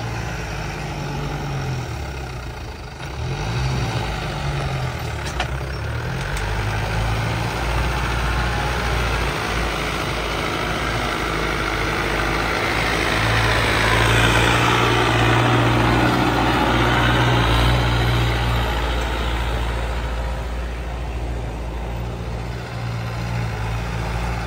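Mahindra Arjun Novo 605 tractor's diesel engine, fitted with a turbo and a modified fuel pump, running steadily under load as it pulls a tillage implement through the soil. It grows louder near the middle as it passes close by, then eases off.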